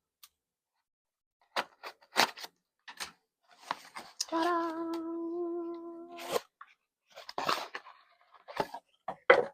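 Packaging being torn and crinkled open in short sharp snaps and rustles, with a sung "ta-da" held for about two seconds in the middle.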